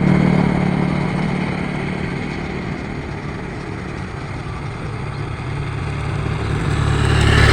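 Engine of a motor vehicle going by: loud at first, fading, then growing louder again toward the end as one comes close.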